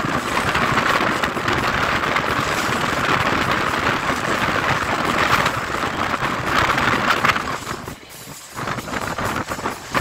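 Passenger train running along the line, heard through an open window: a steady noisy rush of wheels on rails and moving air, which drops away briefly near the end and then comes back.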